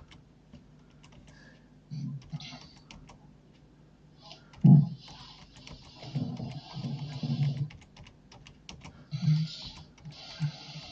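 A sleeping man snoring: several snore breaths a couple of seconds apart, the loudest a short burst about five seconds in. Computer keyboard keys click throughout.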